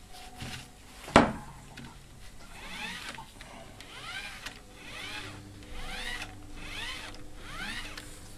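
A sharp knock about a second in, then a squeaky whir that rises and falls in pitch about once a second as the freshly oiled drive mechanism of a Samsung DVD-P181 is worked back and forth by hand.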